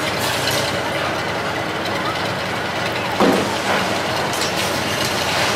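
Heavy diesel machinery running steadily, with one sudden louder crash about three seconds in.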